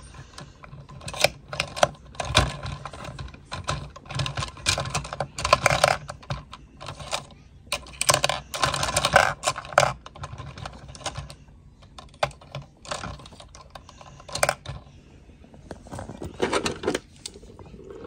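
Packaging being handled and opened: irregular bursts of rustling with sharp clicks and taps.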